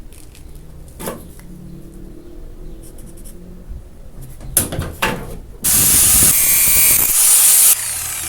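A few light knocks and rubbing, then a loud spray hiss lasting about two seconds that cuts off suddenly near the end.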